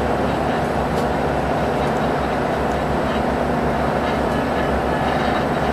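Steady running noise of an airport ground vehicle driving across the apron: a constant low engine hum under a rushing noise, with no change in level.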